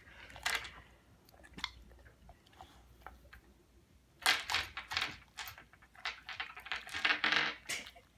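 Pebbles clicking, scraping and rattling on a coffee table and against a boxer dog's teeth as the dog mouths them up: a few scattered clicks at first, then a dense run of rattling from about four seconds in until near the end.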